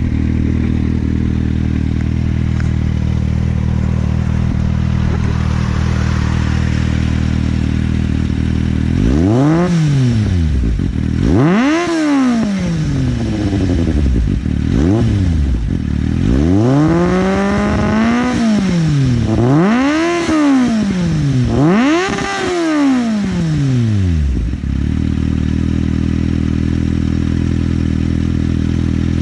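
2009 Kawasaki Z750's inline-four engine with a Roads Italia Doublefire aftermarket exhaust, idling steadily, then revved in about five quick blips that rise and fall in pitch, one held longer, before settling back to idle.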